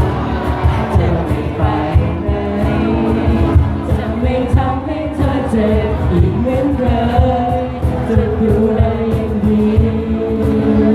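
A Thai pop song playing, a melody line over a steady beat.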